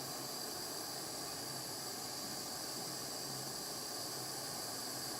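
Gas soldering torch flame hissing steadily as it heats a silver ring to flow the solder.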